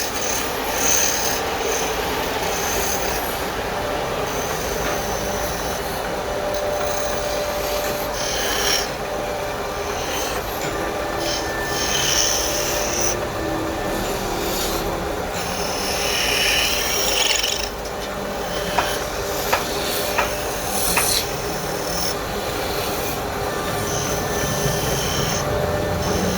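Continuous rasping and scraping on wood, with a few sharp clicks about two-thirds of the way through.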